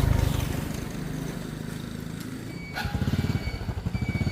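Motorbike engine running. About three seconds in it gets louder with a rapid, even putter, after a short click.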